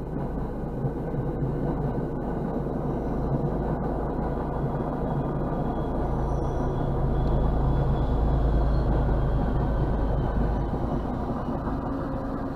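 MBTA commuter rail train passing over a grade crossing, heard from inside a car as a steady low rumble. It grows loudest about two-thirds of the way through as the end of the train goes by, then eases off.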